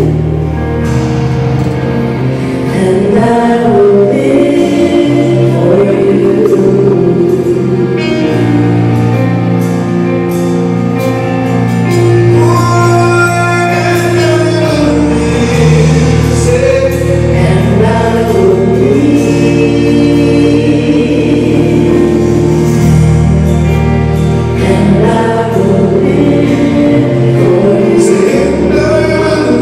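Gospel choir singing over a band, with a steady bass line and drum and cymbal hits.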